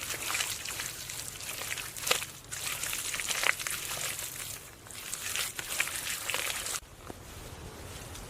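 Dry vegetation rustling and crackling as it is handled, with a few sharp snaps. It cuts off abruptly near the end, leaving a quieter steady hiss.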